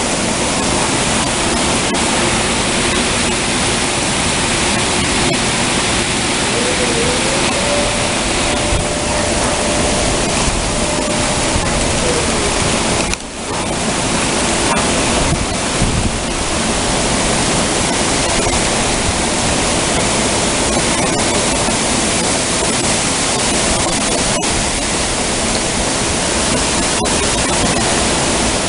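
Heavy thunderstorm rain pouring down steadily, a dense even wash of sound.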